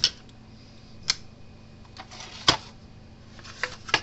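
Objects being moved about on a workbench: a handful of separate sharp clacks and knocks, roughly one a second.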